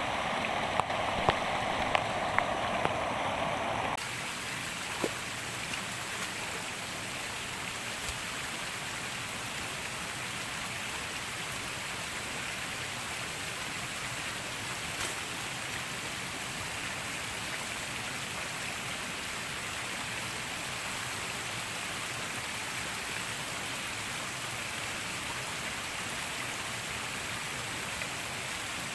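Steady rain, an even hiss. For the first four seconds there is running water with a few sharp clicks, and it cuts off abruptly about four seconds in.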